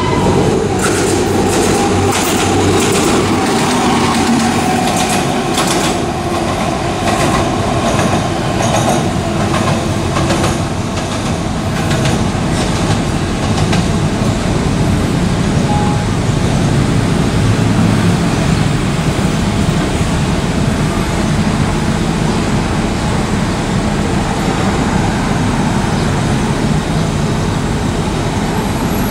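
A train running on the line past the station platform: a steady rumble, with irregular clicking of wheels over rail joints through roughly the first dozen seconds.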